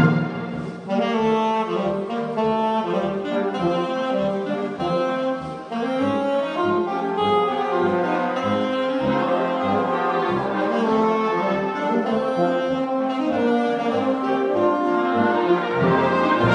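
Solo saxophone playing a melody of quick, moving notes, accompanied by a wind band of clarinets, saxophones and brass over a steady pulsing beat.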